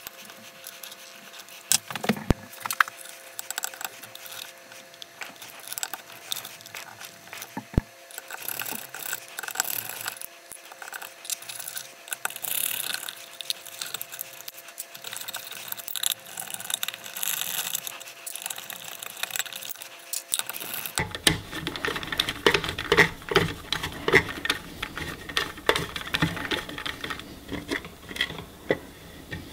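Screwdriver working screws out of a milling machine's speed-controller box, with irregular clicks, scrapes and small metal clinks as screws and parts are handled. The handling gets busier about two-thirds of the way through.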